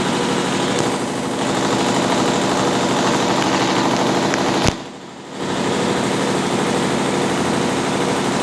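Consul Facilite 10 kg top-loading washing machine running its wash agitation: a steady motor hum with water and clothes churning. About halfway through there is a click and a short pause before the motor starts again, as the agitation changes direction.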